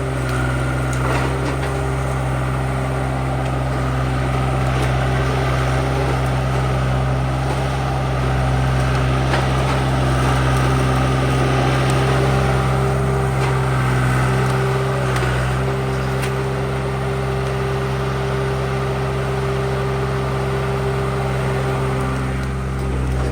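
Forestry skid steer's diesel engine running steadily under load, with a few faint knocks.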